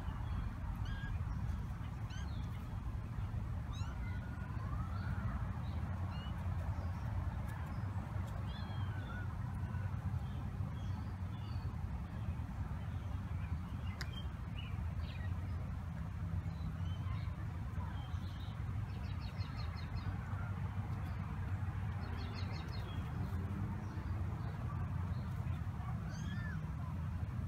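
Outdoor ambience: a steady low hum with scattered bird chirps and a few short calls, and a brief rapid trill about two-thirds of the way through.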